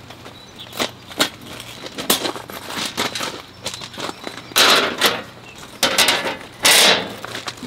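Folding steel-mesh camp table being unfolded and set up: a series of metal clicks and knocks from the frame and legs, with two louder scrapes about halfway through and near the end as the frame and the tabletop panel are set down.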